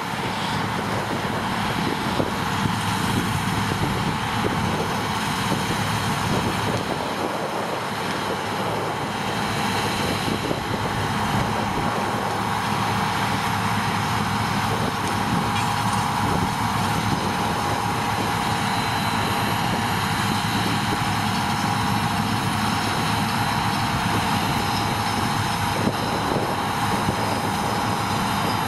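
Claas Lexion 670 combine harvester working through a crop of oats: its engine and threshing machinery run steadily under load, with a steady whine over the rumble.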